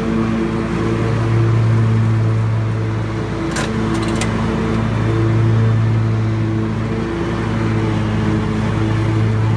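Scag Tiger Cat zero-turn mower running steadily while mowing, its engine note swelling and easing slightly as it moves. A few sharp clicks come about three and a half to four seconds in.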